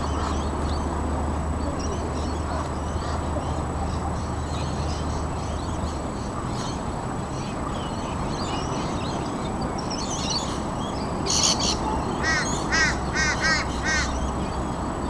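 A bird calls loudly about six times in quick succession near the end, with fainter chirping from other birds over a steady rushing background noise.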